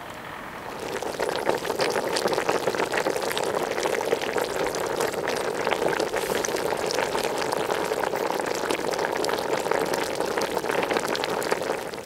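Chicken legs and potatoes bubbling in liquid in a pot on a campfire: a dense, steady crackle of popping bubbles that starts about a second in and cuts off at the end.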